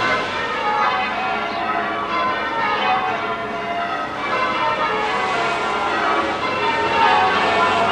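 Church bells being rung in changes, the bells striking one after another in repeating descending rows.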